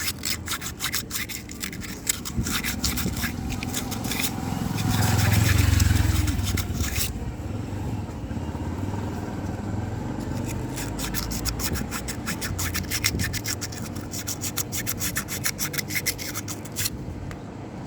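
Emery paper scrubbed back and forth over a motorcycle disc-brake caliper piston to clear rust, in quick scraping strokes that pause for a few seconds in the middle. A low rumble swells about five seconds in.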